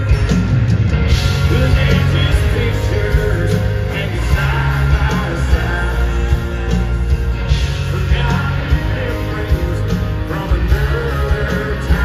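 Live country band playing through an arena sound system, heard from the crowd: electric and acoustic guitars, banjo, bass and drums, with a sung lead vocal.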